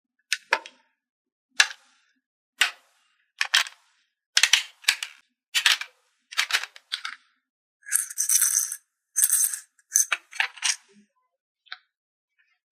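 Toy picnic playset pieces handled and set down: a string of separate sharp clicks and taps, with two longer scraping rustles about eight and nine seconds in.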